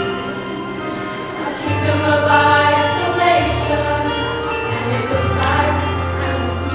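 A mixed high school choir singing in harmony, with a sustained bass line underneath that changes note every couple of seconds.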